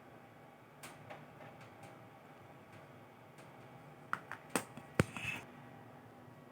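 Scattered light clicks and taps from a phone and its cable being handled, with a cluster of sharper clicks about four to five seconds in.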